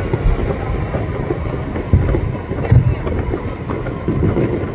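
Distant aerial firework shells bursting in quick succession, their booms running together into a low rumble, with heavier booms about two seconds in and again near three seconds.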